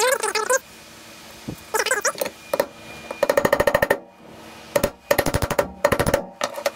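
Rubber slide-pin boot squeaking and chattering in rapid stuttering bursts as it is pressed and twisted by hand into its greased bore in a brake caliper bracket. There are short squeals in the first couple of seconds, then two longer runs of fast chatter.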